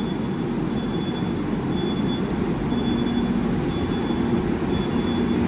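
Moscow metro train running on the Butovo line, heard from inside the carriage: a steady rumble of wheels on track. A faint high tone pulses on and off, and a low hum joins a little past halfway.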